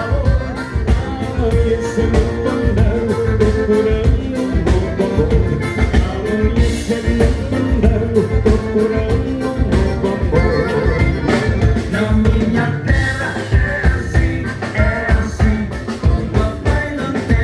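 Live gaúcho dance band playing a vanera, a fast dance rhythm driven by a steady drum beat under a sustained accordion melody.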